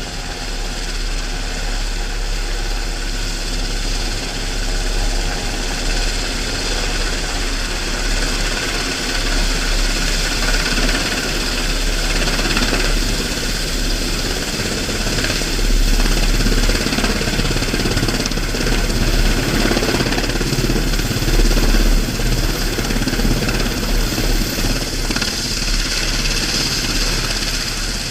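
Sikorsky S-92 helicopter's twin turboshaft engines and rotor running on final approach: a steady high whine over a dense drone, getting louder through the middle of the approach.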